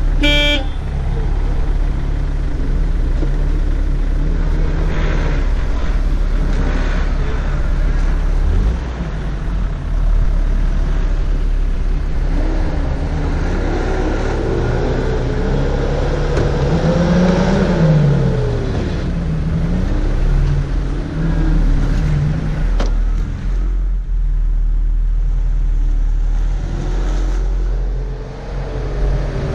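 Off-road 4x4 engines in snow: a steady low engine drone throughout, with an engine revving up and down for several seconds around the middle and again near the end as a small 4x4 pushes through deep snow.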